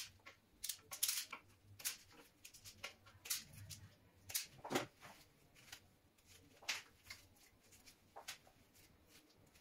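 Scattered light clicks and rustles, a dozen or so at irregular intervals, of gloved hands handling a stiff electrical wire and working a spring-loaded wire stripper on it.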